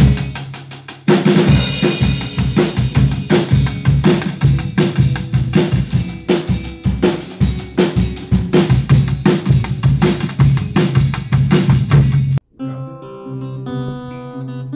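Rock drum kit playing a busy beat of bass drum, snare and cymbals, with a cymbal crash about a second in and a steady low note from the band under it. Near the end it cuts off abruptly and an acoustic guitar picking single notes takes over.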